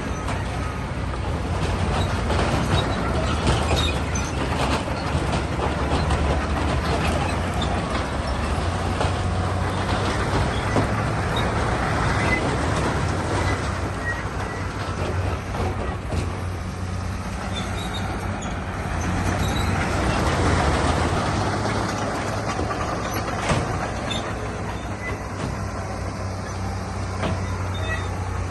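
Bulldozer at work: its diesel engine runs steadily under load while steel tracks and rock clatter and scrape. The sound swells a few seconds in and again past the middle, with one sharp knock near the end.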